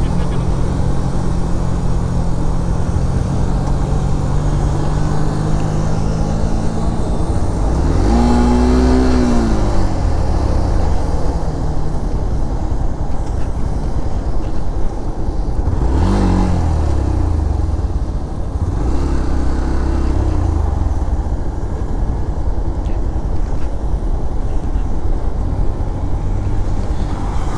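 Motorcycle engine running under way with a steady rush of wind noise. The engine pitch rises and falls briefly about eight seconds in, and again around sixteen seconds.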